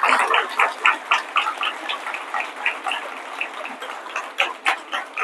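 Audience applauding, a dense burst of clapping that thins out into scattered claps.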